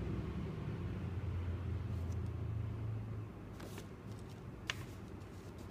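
A low, steady mechanical hum that stops about three seconds in, followed by a couple of light clicks.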